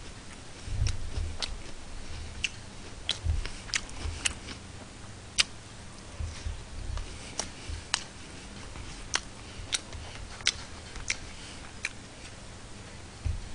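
A man eating a spicy pork cutlet and rice with chopsticks, close to the microphone: chewing, with irregular sharp clicks and a few low thuds.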